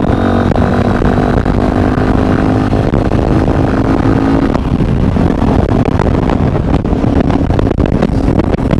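Sinnis Terrain 125's single-cylinder engine running through a full stainless Torro exhaust as the motorcycle is ridden. It holds a steady note for about the first four and a half seconds, then turns rougher and noisier.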